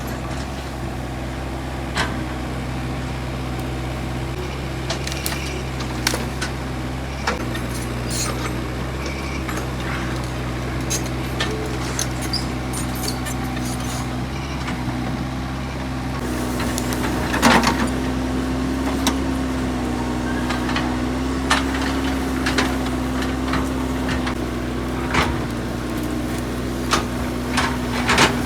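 Excavator's diesel engine running steadily, with scattered knocks and clanks of the machine at work. The engine note rises a little about 16 seconds in, and the loudest clanks come just after.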